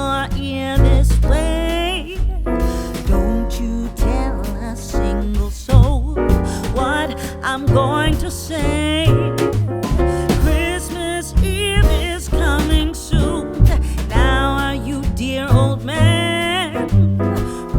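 Background music: a song with a singing voice over a heavy bass line.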